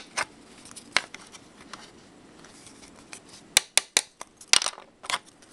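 Wooden fingerboard deck clacking on a wooden tabletop as its tail is popped and struck with the fingers. There are a few sharp clacks in the first second, then a quicker run of about six near the end.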